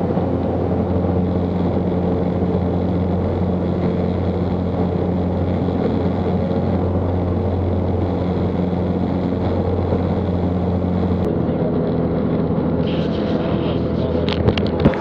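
Steady drone of a UL Power UL350i four-cylinder engine and propeller, heard inside the cockpit of a Zenith CH 750 Cruzer climbing out at high power just after takeoff. The drone changes character about 11 seconds in, and a few short clicks come near the end.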